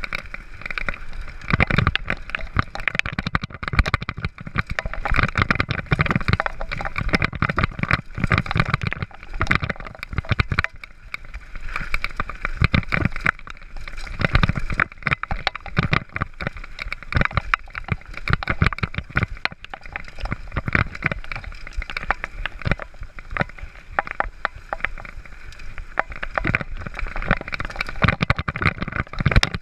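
Downhill mountain bike riding fast over a bumpy dirt trail: a steady rushing noise with constant rattling and irregular knocks as the bike hits roots and bumps.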